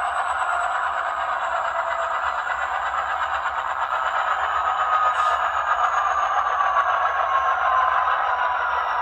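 Digitally reproduced diesel locomotive sound from an ESU LokSound 5 decoder in an Athearn Genesis HO-scale SD70ACu, played through the model's small speaker: a steady engine running with little bass, while whining tones slowly fall in pitch. A brief click comes about five seconds in.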